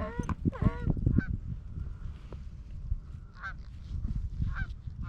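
Geese honking: a quick run of overlapping honks in the first second or so, then single honks about once a second, over a low rumble.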